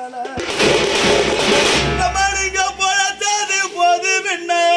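Man singing an oppari, a Tamil funeral lament, in long held notes. About half a second in, a loud rushing noise with a low rumble covers the voice for about a second and a half.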